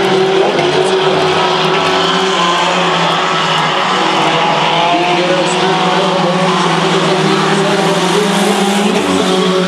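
Several mini truck race engines running together on a dirt oval, a steady drone with no sharp revving.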